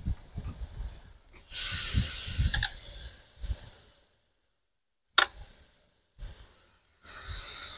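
Marinated pork skewers sizzling on a hot cast-iron charcoal hibachi grate as more are laid on with tongs. The sizzle comes in two spells, about a second and a half in and again near the end, with a few low knocks early on and one sharp click a little past halfway.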